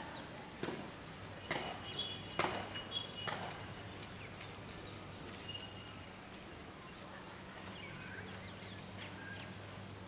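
Outdoor ambience: a steady low hum with faint, scattered bird chirps, and a handful of sharp knocks in the first three and a half seconds, the loudest sounds here.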